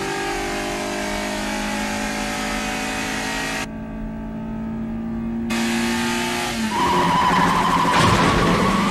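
A racing car's engine held at high revs, its pitch creeping slowly upward, sounding briefly muffled about four seconds in. Near the end, loud tyre squeal takes over.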